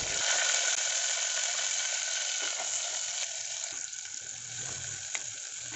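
Sliced onions with cinnamon, bay leaf and cloves sizzling in hot oil in an unglazed clay pot as a metal ladle stirs them. The sizzle is steady, easing off slightly towards the end, with a few faint clicks.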